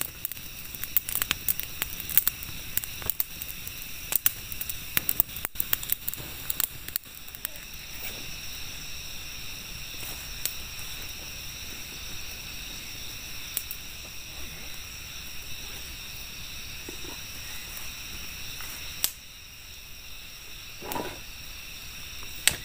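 Night insects, crickets or cicadas, keep up a steady high-pitched chorus. Over it run many sharp crackles and clicks for the first several seconds, which then thin out to only a few. About two seconds before the end there is a short, lower sound.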